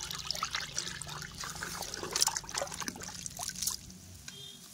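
A hand stirring powdered fabric dye into water in a bucket, with repeated splashing and sloshing that settles down near the end.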